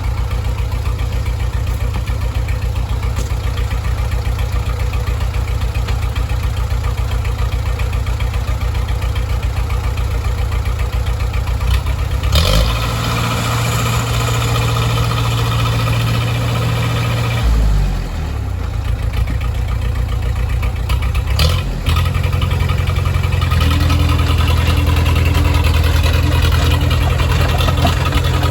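Diesel engine of a 1963 Case 310F crawler dozer running steadily, then picking up speed about twelve seconds in, dropping back a few seconds later, and picking up again to run a little harder through the last few seconds, as the dozer is brought forward.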